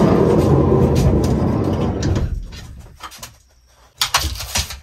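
A loud low rumble that fades away over the first two or three seconds, then sharp scratchy clicks from about four seconds in as a Labrador retriever steps up into the camper van, its claws and harness scraping on the floor.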